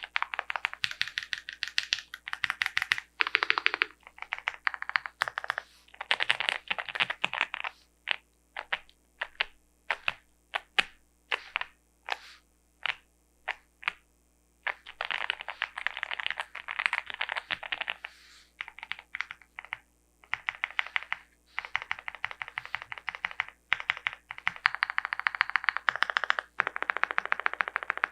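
Typing on an Owlab Mr. Suit custom mechanical keyboard with lubed Gateron Box Ink Black linear switches, a POM plate and GMK keycaps. Fast runs of keystrokes are broken by a stretch of slow, single key presses about a third of the way through, then fast typing resumes.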